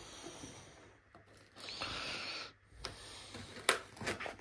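Large kitchen knife slicing through the cardboard and packing tape of a parcel: a scraping rasp lasting under a second about midway, with soft cardboard handling noise around it and a sharp click near the end.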